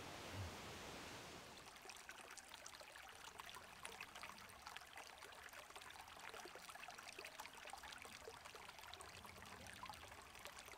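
Shallow rocky creek faintly babbling and trickling over stones, a fine continuous splashing that comes in about a second and a half in after a faint steady hiss.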